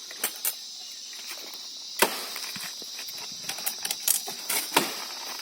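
Several sharp wooden knocks at irregular intervals, the loudest about two seconds in, as a tree is cut by hand. Insects drone steadily and high-pitched underneath.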